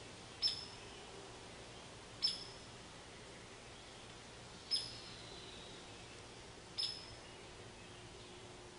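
A sharp, high chip call from an unseen small animal, repeated four times about two seconds apart, over a faint steady background.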